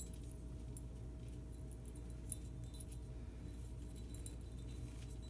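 Faint, scattered clinks of a metal ball pull chain being threaded back into a porcelain light socket's pull-chain switch, over a steady low hum.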